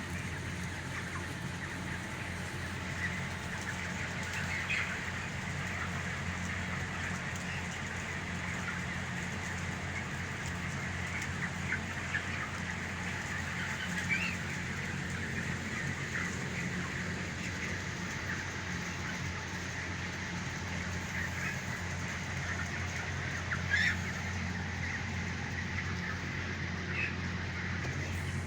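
A flock of broiler chicks peeping and chirping, many short high calls overlapping, over a steady low hum, with a brief louder burst of calls near the end.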